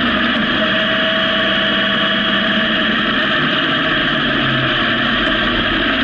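Honda CB750 motorcycle running at a steady cruise, a constant engine drone under heavy wind rush on the onboard camera's microphone.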